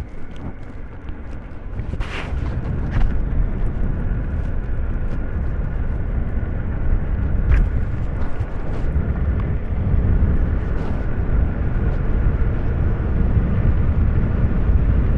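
Steady low rumble of vehicle and road noise outdoors, with a few faint clicks.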